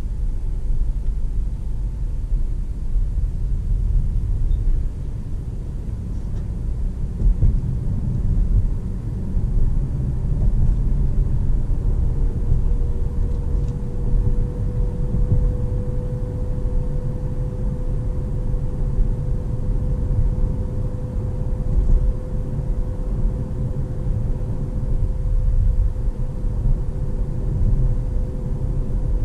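In-cabin sound of a Jeep Compass 1.5 mild-hybrid petrol SUV driving at city speed. A steady low rumble of engine and road noise is joined about twelve seconds in by a faint steady whine that rises slightly as the car gathers speed.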